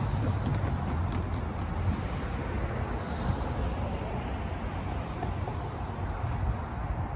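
A car driving past over the crossing, its tyre and engine noise fading away. Wind buffets the microphone under it.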